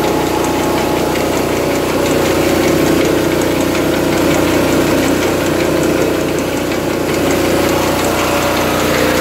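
A 24-inch Crossley gillnet lifter running fast on a portable hydraulic drive: a steady mechanical drone with a low hum and a fine, rapid ticking.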